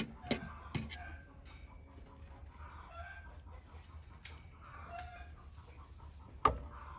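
Chickens clucking off and on in the background, with a few spoon clicks near the start as avocado flesh is scooped from its skin. A single sharp knock near the end, the loudest sound, as a glass blender jar is set down on the wooden table.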